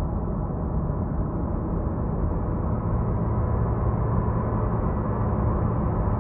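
Dark ambient drone music: a dense, low, sustained drone with held low tones and nothing sharp or high. A deeper steady tone swells in about three seconds in.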